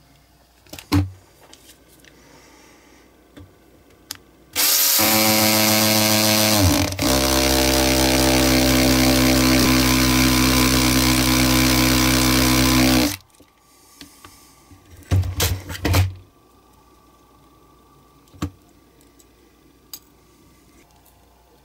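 Cordless drill running in hammer (impact) mode, pressed onto the end of a diecast toy's wheel axle to crimp it over. It runs steadily for about eight seconds, starting about four and a half seconds in, and briefly falters and picks up again about two seconds into the run. Short handling clicks come before and after it.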